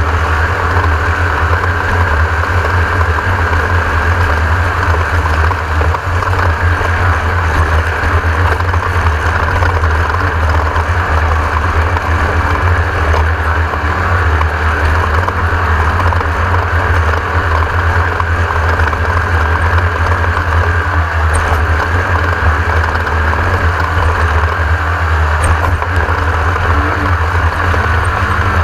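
Class 1600 off-road race car's air-cooled Volkswagen engine running steadily with road noise, a continuous loud drone with no let-up.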